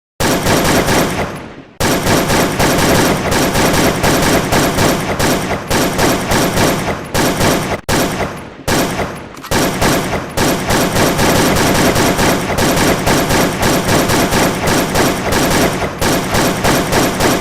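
Rapid automatic gunfire in long, nearly continuous bursts, with a few short pauses between them. It starts abruptly out of silence.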